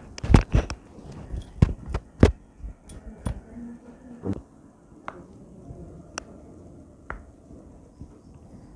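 A series of sharp slaps and knocks from a chiropractor's hands working on a patient's body during an adjustment. Several come in quick succession at first, then about one a second.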